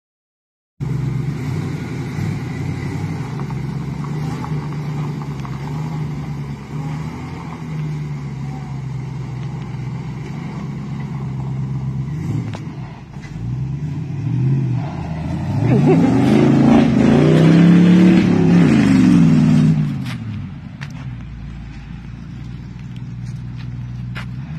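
Engine of an old pickup truck, long unused, running steadily, then revving up and back down about sixteen to twenty seconds in as the truck drives. It is quieter after the rev as the truck moves away.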